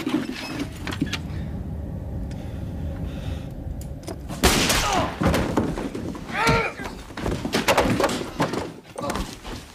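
A scuffle: heavy thuds and crashes start about four seconds in, with a man crying out once in the middle of them. Before that, a low steady rumble with a few faint knocks.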